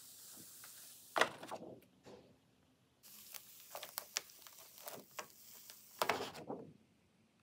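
Printing paper being peeled off an inked linoleum block, the tacky ink letting go in short crackles as the sheet rustles. Several separate pulls, the loudest about a second in and again about six seconds in.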